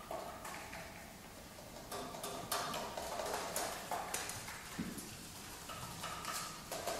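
Saxophone quartet playing a quiet contemporary passage of scattered percussive clicks and taps from the saxophones' keys, with faint held tones under them.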